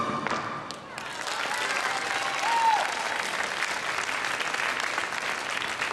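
Audience applauding as the routine's music stops, the clapping building up about a second in and carrying on steadily. One short high call rises and falls over the clapping about two and a half seconds in.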